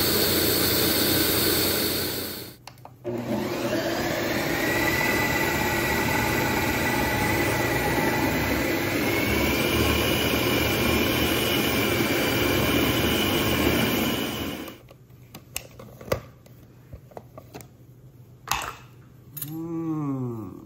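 Ninja blender running, blending raspberries into sorbet. It cuts out for a moment about two and a half seconds in, then runs steadily with a whine that rises slightly in pitch, and stops about three-quarters of the way through. After it, a few faint clicks and a short sliding tone near the end.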